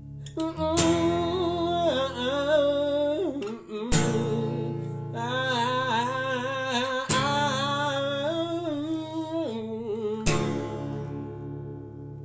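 Music: voices singing a wordless choral part over guitar in three phrases, the last chord ringing out and fading near the end.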